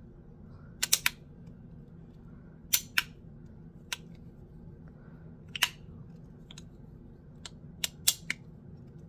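Magnetic bean slider fidget toy being slid back and forth in the hand, snapping into its click positions with sharp clicks at irregular intervals, several in quick pairs.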